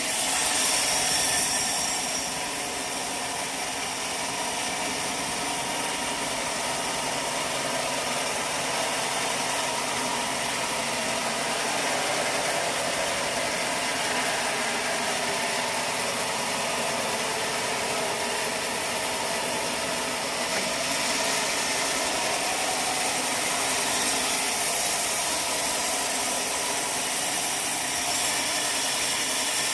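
Sawmill machinery running steadily, a constant engine-like noise with no cutting strokes standing out.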